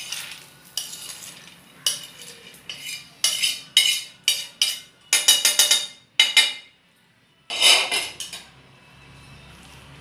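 A metal spatula scrapes roasted peanuts off a flat iron griddle (tawa) into a steel plate in a series of short, quick strokes. After a brief pause there is one longer scrape a little past halfway.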